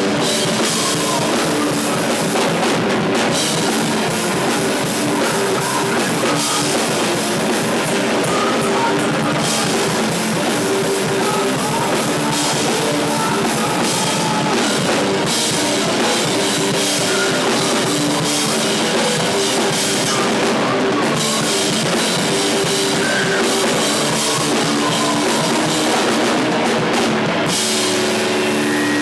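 Sludge metal band playing live: heavily distorted electric guitar over a full drum kit, loud and steady, with no singing.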